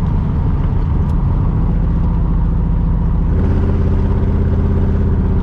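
1982 Chevrolet Camaro's engine and exhaust heard from inside the cabin while driving, a steady low drone; about three seconds in the note changes and settles into an even hum.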